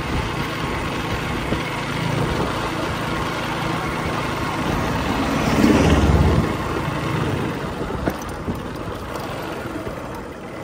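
Vehicle engine running with steady road and wind noise as it travels along a road, with a louder swell lasting about a second halfway through.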